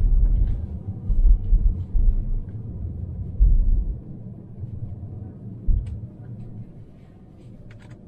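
Low rumble of tyres and suspension heard from inside a BMW X1's cabin, driving slowly over a bumpy road, with several jolts; the rumble eases off about four seconds in, and there is one more short jolt near the end.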